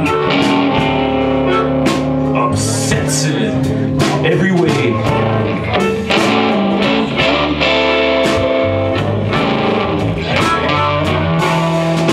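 Live blues band playing an instrumental break: amplified harmonica blown into a cupped microphone, with held and bent notes, over electric guitar, bass guitar and drums.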